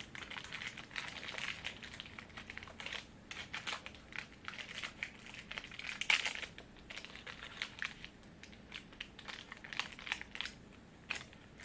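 A small printed candy wrapper being picked at and torn open by fingers: irregular crinkling and crackling, loudest about six seconds in and thinning out near the end.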